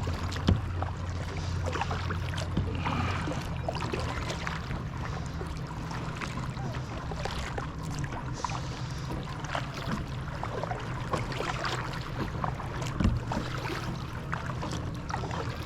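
Kayak paddling: water splashing and dripping with irregular paddle strokes, and water lapping at the hull, over a low steady hum that is stronger for the first few seconds.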